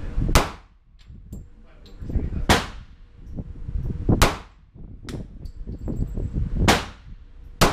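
A .40 S&W semi-automatic pistol fired in slow, deliberate single shots, five in all, about two seconds apart, each shot ringing briefly off the indoor range walls. Fainter knocks come between the shots.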